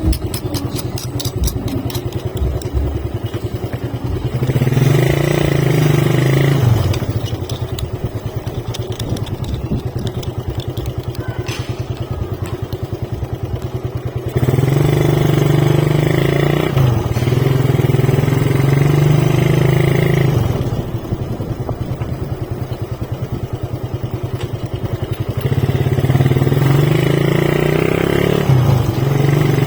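Motorcycle engine running while riding, rising in three stretches of a few seconds each as the throttle opens and easing back in between.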